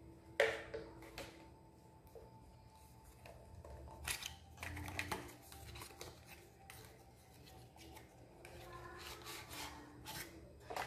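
White paperboard box insert being handled and unfolded: a sharp snap about half a second in, then rustling and scraping of cardboard around four to five seconds in and again near the end.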